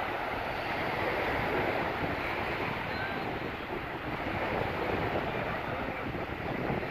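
Small waves washing up on a sandy beach, a steady rush of surf, with wind blowing on the microphone.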